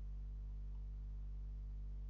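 Steady low electrical hum with an even buzz, and two faint clicks a little over half a second in.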